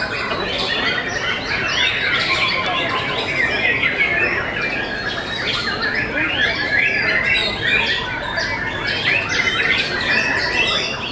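White-rumped shamas (murai batu) singing at once: a dense, unbroken run of rapid whistles, chirps and harsh chattering notes.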